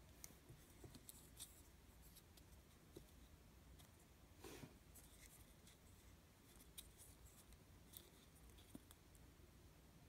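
Near silence with faint scattered clicks and rubbing of a hard plastic gashapon capsule being turned in the hands, and a brief soft scrape about four and a half seconds in.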